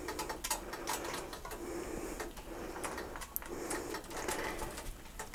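Kitchen tongs clicking and scraping against a stainless steel stockpot while gripping wet wool yarn in the dye bath, in irregular clicks and scrapes.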